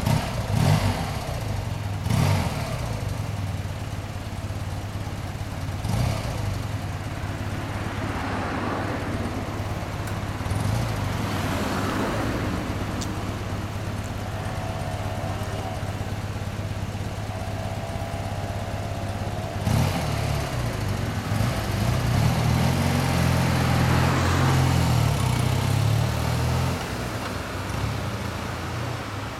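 BMW R100RS sidecar's air-cooled flat-twin boxer engine, fitted with a custom exhaust, idling steadily with a few short throttle blips. Near the end it revs up as the rig pulls away.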